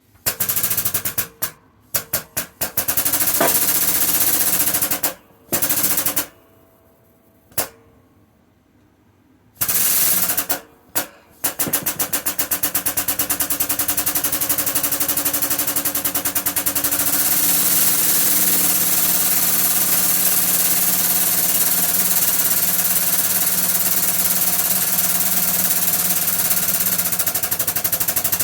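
Air-powered shop press pump running with a rapid, machine-like clatter while driving a bush out of a lathe gear. It comes in several short bursts at first, then runs without a break for the second half.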